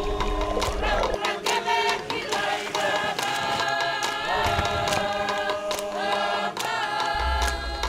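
Background music: a choir singing long held notes over percussion hits, with a deep bass at the start and again near the end.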